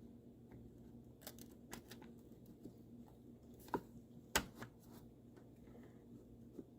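Light clicks and taps of 1980 Corvette steering-column parts being handled as the lower case is worked into place, with two sharper clicks a little past the middle, over a low steady hum.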